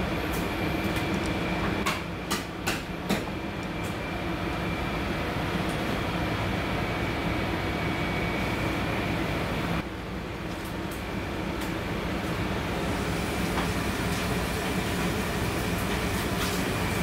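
Steady machine-like rumble and hum with a thin high whine running through it, and a few sharp clicks between two and three seconds in. The noise drops suddenly about ten seconds in and swells back over the next few seconds.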